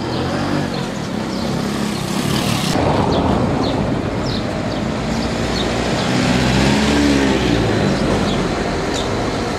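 Street traffic: a motor vehicle's engine running and going by, its pitch rising and falling twice.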